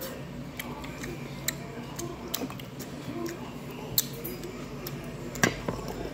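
Scattered sharp clicks of metal chopsticks against a stainless steel noodle bowl, a few irregular taps with the loudest about four seconds in and another near the end, over a steady low background hum.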